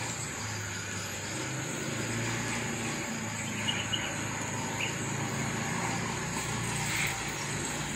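Outdoor ambience: a steady high-pitched insect drone with a few short bird chirps, about midway and again near the end, over a low steady hum.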